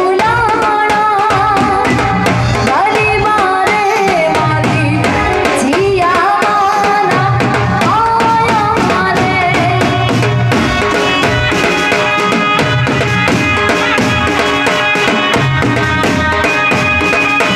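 Garba folk music played live for Navaratri: a singer's melody over a steady, repeating drum beat with keyboard accompaniment. About ten seconds in, the voice gives way to held instrumental tones while the beat carries on.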